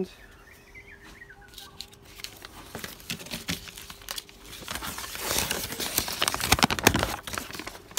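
Crinkling and rustling of packaging and paper being handled, an irregular run of crackles that builds and is loudest about five to seven seconds in.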